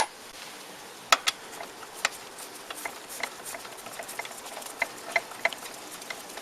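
Socket ratchet clicking and metal tools clinking while a bolt is worked loose from a Yamaha TMAX 530's drive pulley bracket: a few sharp clinks, then a run of lighter, fairly regular ticks.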